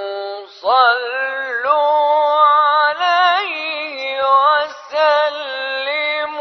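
A man chanting Quranic recitation in the mujawwad style: long held notes with wavering ornaments and no accompaniment. There is a short breath break about half a second in and another near five seconds.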